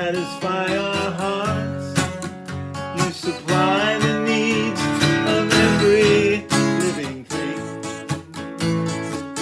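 Acoustic guitar strumming chords in an instrumental break of a folk-style worship song, with a wavering lead melody line over it near the middle.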